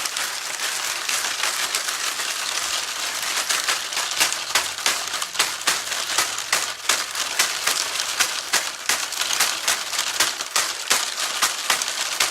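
Homemade small-bottle shaker played to imitate the sound of water: its contents hiss and patter steadily, with many sharp, irregular clicks growing more frequent from a couple of seconds in.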